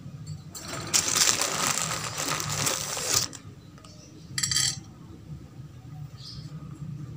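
Metallic rattling and clinking at a wire rabbit cage: a long rattle of about two and a half seconds, then a short one about a second later.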